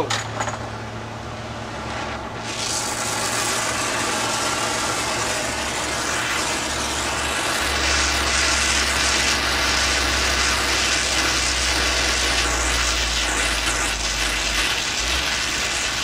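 Brazing torch flame hissing steadily as it heats a copper refrigerant liquid line to braze a screw hole closed; the hiss starts about two seconds in, and a low rumble joins it about eight seconds in.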